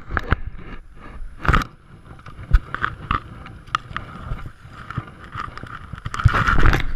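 Choppy waves slapping and splashing against a kayak's hull as it is paddled, with a louder run of splashing near the end.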